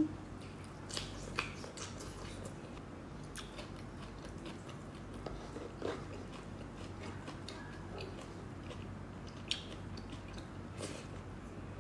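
Chewing with soft wet mouth clicks, a person eating cooked mustard greens and rice by hand; a few louder clicks stand out now and then.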